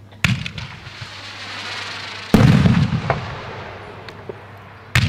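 A 38 mm single-shot firework shell launches with a thump and climbs with a silver whirl rise, heard as a growing hiss. About two seconds later it bursts with a loud bang, the loudest sound here, and crackling trails off after it. Another sharp shot goes off near the end.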